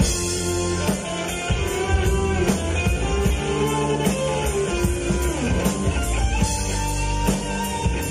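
Live rock band playing: electric guitar, bass guitar, keyboard and a drum kit keeping a steady beat.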